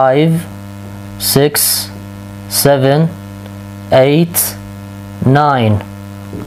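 Steady electrical mains hum with its overtones, under a man's voice slowly saying five English number words, one about every second and a third.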